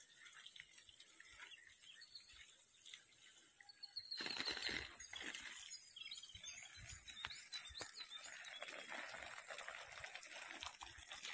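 Quiet outdoor ambience with a few faint bird chirps. From about four seconds in, a louder rustling noise with scattered clicks joins it.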